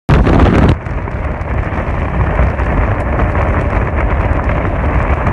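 Express train running at speed, heard from an open coach doorway: a steady low rumble of wheels on the track mixed with wind buffeting the microphone. A louder, hissier blast of noise opens the sound and drops back within the first second.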